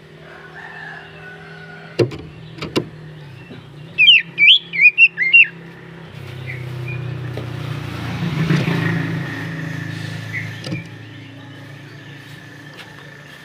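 A burst of loud, quick, sweeping whistled notes from an oriental magpie-robin about four seconds in. It is followed by a car passing, whose low hum swells and then fades. Two sharp clicks come near the start.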